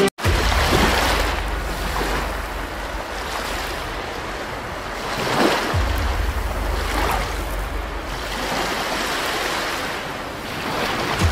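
Surf-like rushing water sound effect with a low rumble, swelling about halfway through and again near the end.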